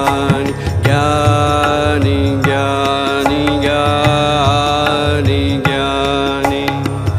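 Indian devotional bhajan music: a melodic line of held, ornamented notes with gliding pitch over a steady tabla rhythm.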